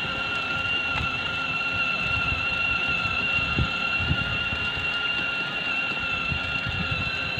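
Wind buffeting the microphone: a low, uneven rumble. A steady high-pitched whine sits under it.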